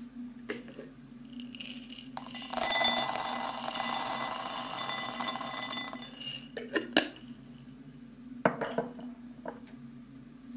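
Dried peas poured into a ceramic bowl: a steady pour for about three and a half seconds, followed by a few light clinks against the bowls.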